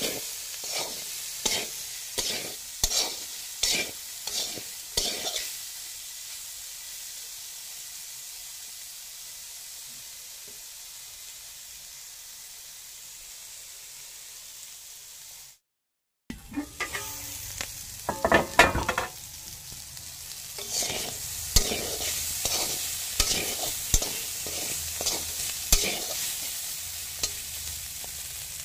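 A spatula scrapes a steel wok in repeated strokes, about two a second, stirring insect pupae and onion frying in oil over a steady sizzle. The stirring stops for about ten seconds, leaving only the sizzle. The sound cuts out briefly, then the stirring picks up again, loudest in a quick flurry of strokes.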